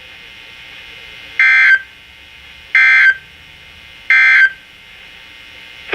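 Three short bursts of EAS/SAME digital data tones from a NOAA Weather Radio broadcast, each a fraction of a second long, about a second apart, with faint radio hiss between. The short bursts sent three times are the end-of-message code that closes the alert.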